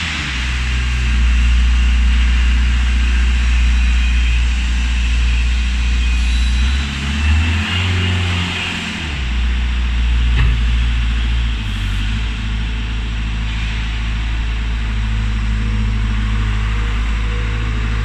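JS50 skid steer loader's engine running steadily with a loud low drone as the machine works and drives. The drone shifts in pitch between about seven and nine seconds in, then settles again.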